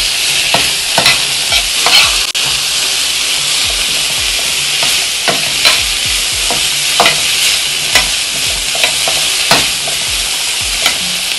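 Sliced bell peppers and onions sizzling in a hot frying pan with a steady hiss. A slotted spatula stirs them, with irregular scrapes and knocks against the pan.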